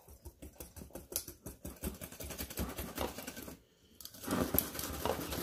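Wire whisk beating cornbread batter in a glass mixing bowl: a rapid run of clicking taps as the wires strike the glass. The sound cuts out briefly a little past halfway, then the whisking comes back louder.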